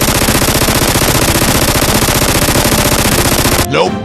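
Machine-gun sound effect: one long, very rapid burst of automatic fire that cuts off abruptly near the end, followed by a short sliding tone.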